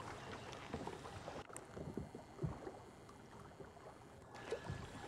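Faint water lapping, with irregular small splashes and low knocks, over a light wind haze.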